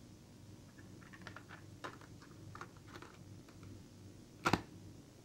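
Light plastic clicks and rattles of a clear cassette tape being handled and seated in a Sony portable cassette player, then a sharp snap about four and a half seconds in as the player's cassette door is pressed shut.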